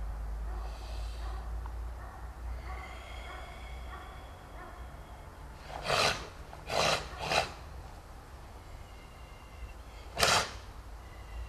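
A karateka's sharp, forceful exhalations timed with techniques of the kata Meikyo Nidan: three quick breaths about six to seven and a half seconds in, then one more about ten seconds in.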